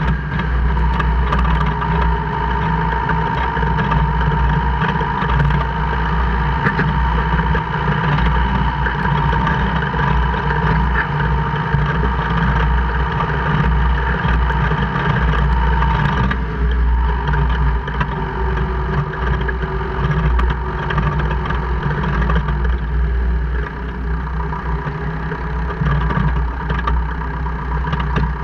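2002 Jeep Cherokee KJ running, with a steady low rumble and a high whine that fades out about sixteen seconds in, over faint scattered clicks. This is the gear-grinding/clicking noise that occurs only in 4H or 4L and never in 2H, its cause unknown to the owner.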